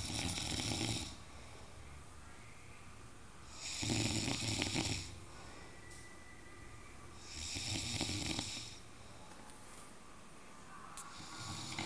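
A sleeping person snoring in a slow, even rhythm: three snores about a second long, roughly three and a half seconds apart, with a fourth beginning near the end.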